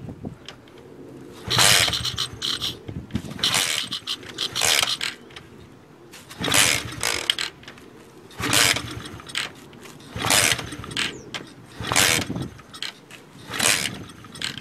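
Pit bike being kick-started again and again, about seven kicks roughly every two seconds; each kick turns the engine over briefly but it never catches. The engine is failing to start with a fuel-flooded, wet spark plug.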